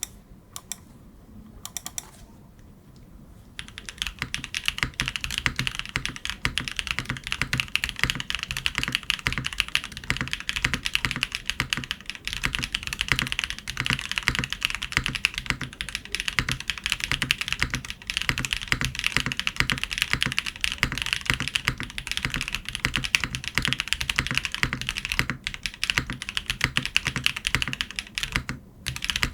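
Typing on a Monokei Kage SE tenkeyless mechanical keyboard with a polycarbonate plate, Bsun Aurora Polaris switches and GMK keycaps. A few lone keystrokes come first, then fast continuous typing starts about four seconds in, with a short pause near the end.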